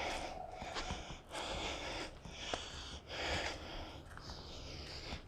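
A person breathing hard close to the microphone, in a series of noisy breaths roughly every second or so.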